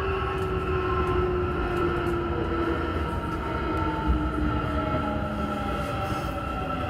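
Airport Railroad commuter electric train running underground, heard from inside the car: a steady low rumble of wheels on rail with motor whine tones that slowly fall in pitch as the train slows.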